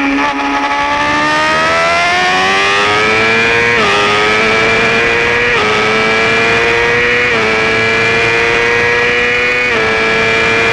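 Yamaha R6 600cc inline-four engine heard from on board, accelerating hard out of a corner: the revs climb steadily, then the engine shifts up four times, each shift a short dip in pitch before it climbs again.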